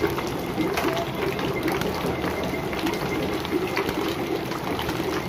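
Rainwater pouring off a roof and splashing onto a wet concrete floor: a steady watery rush with a faint low hum under it.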